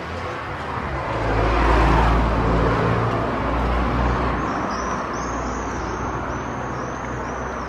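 Street traffic: a car passes, its noise swelling and easing over a couple of seconds over a steady low rumble. From about five seconds in, a high chirp repeats about twice a second.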